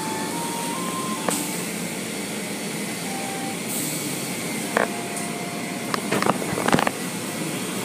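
Automatic car wash running: a steady rush of water spray and spinning brushes against the car, with scattered knocks and clicks, a cluster of them near the end.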